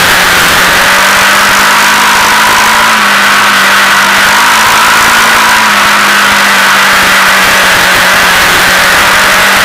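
Honda Foreman 450 ES quad's single-cylinder four-stroke engine running at a steady speed while towing sleds through snow, heard close up. Its pitch holds almost level, with a constant rushing noise over it.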